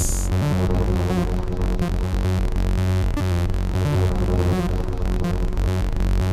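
Electronic synthesizer music in a passage without the drum beat: a steady synth bass under sustained, shifting synth tones.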